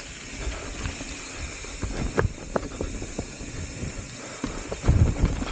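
Mountain bike rolling down a rough dirt and root singletrack: tyre noise with irregular knocks and rattles from the bike jolting over bumps, and heavier thumps near the end.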